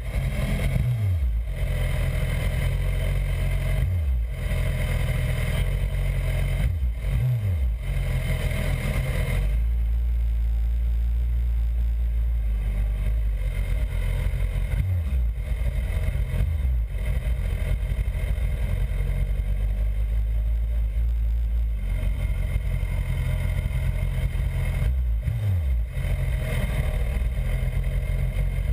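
BMW S1000RR inline-four sport bike engine idling, with a few brief revs that fall back to idle.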